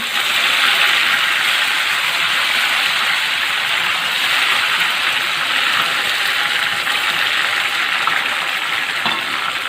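Curry, pandan and mint leaves sizzling steadily in hot coconut oil in a pan, easing off a little near the end.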